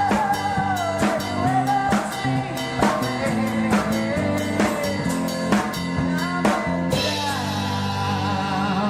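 A rock band playing an instrumental passage: an electric lead guitar bending notes over a drum-kit beat and bass guitar. About seven seconds in a cymbal crash lands and the drumbeat drops out, leaving the guitar and bass ringing.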